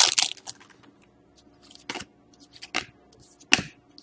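A trading card pack's foil wrapper being torn and crinkled, then cards being handled: the tearing dies away in the first half second, followed by a few short rustles about a second apart.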